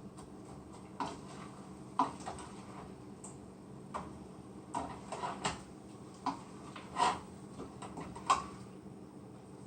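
A cooking utensil knocking and clicking against a frying pan at irregular intervals while meat is stirred and broken up during browning.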